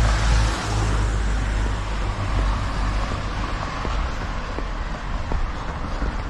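A road vehicle going past, its low rumble and tyre noise slowly fading away.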